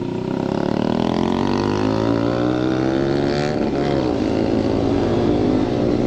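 Motorstar GPR sport bike with an Akrapovic full exhaust accelerating hard, its engine note climbing, dropping once at an upshift a little past halfway, then climbing again. Wind rushes across the microphone throughout.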